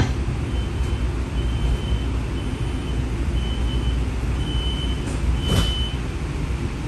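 Streetcar door-closing warning: a single high-pitched beep repeating about once a second, six times, over the steady low rumble of the streetcar cabin. A short sharp noise comes with the last beep.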